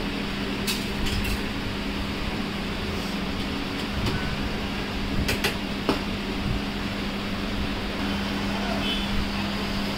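Steady mechanical hum with a constant low drone, like a fan or motor, under a wash of background noise. A few light, sharp clinks of a serving spoon or utensils sound now and then.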